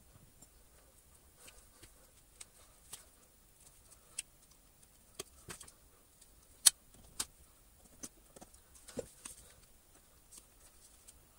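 Scattered light clicks and taps of a screwdriver and wires being worked into the opened plastic handle of a Sebo X1 upright vacuum while its mains cable is rewired. The sharpest click comes a little past halfway.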